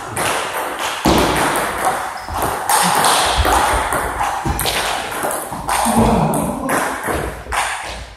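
Table tennis ball being hit back and forth in a rally, sharp clicks off the bats and the table. From about a second in they sit over a loud, continuous noisy din.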